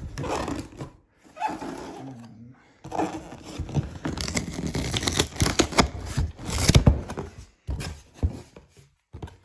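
Cardboard box being opened and its packaging handled: irregular scraping, tearing and knocking, in uneven bursts with brief pauses.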